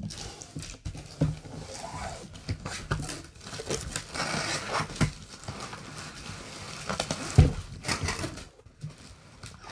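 Cardboard box and packing insert scraping and rustling as they are pulled open by hand, with plastic wrap crinkling and a series of knocks; the loudest is a dull thump about seven seconds in.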